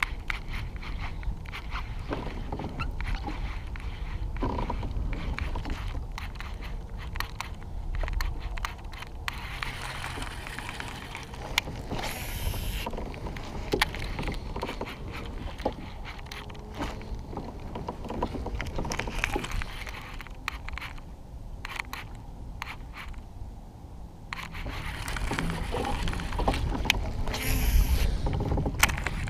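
Handling noise from fishing gear on a kayak: irregular scraping and clicking over a low rumble, with two brief high hisses, one about twelve seconds in and one near the end.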